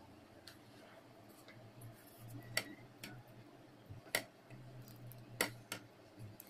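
A few sharp, irregular clicks and taps from a steel pot of thick oat haleem as it cooks and is stirred with a wooden spatula, over a faint low hum that comes and goes.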